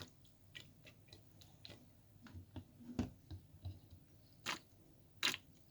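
Scattered small clicks and taps of hands handling a plastic lead-acid battery and its filling container while distilled water is put into the cells, with the loudest knocks about three seconds in and near the end.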